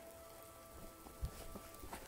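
Soft background music of held, steady notes, over light crackling and a low thump about a second in from someone walking over the forest floor.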